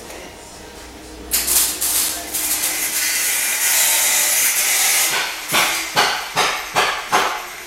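Compressed air rushing from a handheld air gun in a body shop: one long hiss of about four seconds, then five quick short bursts as the trigger is pulsed.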